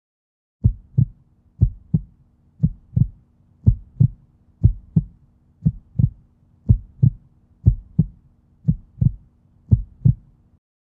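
Heartbeat sound effect: ten double thumps, lub-dub, about one a second, over a faint steady low hum that cuts off just before the end.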